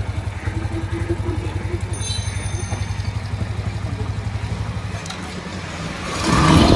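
Yamaha Fazer 150's single-cylinder engine idling with a steady low pulsing beat. About five seconds in its note changes, and it grows louder near the end.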